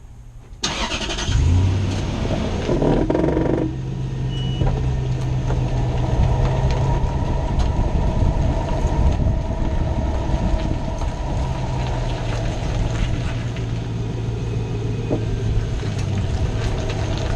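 2006 Toyota Tundra's engine cranking and catching about half a second in, running unevenly for a few seconds, then settling into a steady idle.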